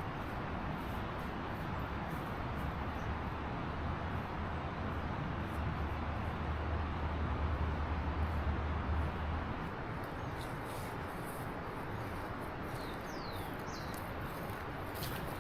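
Outdoor ambience: a steady hiss with a low rumble that swells and then stops about two-thirds of the way in. Near the end, a bird gives a few short, falling chirps.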